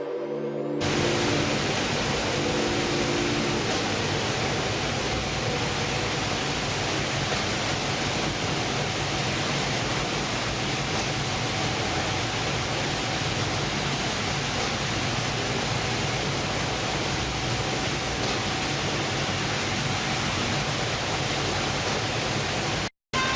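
Steady rushing noise of wind and water with a low, steady engine hum, as from a fishing boat's engine running at sea. A short bit of music fades in the first second, and the sound cuts out for a moment near the end.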